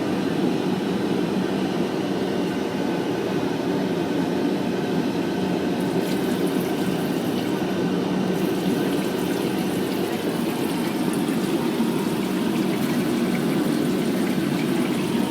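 Steady airliner cabin noise heard in a Boeing 787-8 lavatory: an even rushing drone with no sudden burst. A faint high hiss joins about six seconds in.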